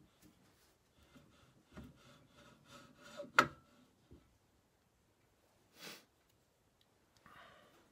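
Metal parts clicking and rubbing as the handle shaft is worked into a Massey Ferguson 35's cast-iron hydraulic lift cover, with one sharp knock about three and a half seconds in and a short scrape near six seconds.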